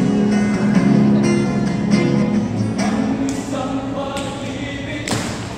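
Live band playing, with acoustic and electric guitars under several voices singing together. Higher voices join about three seconds in, and a sharp thump comes about five seconds in.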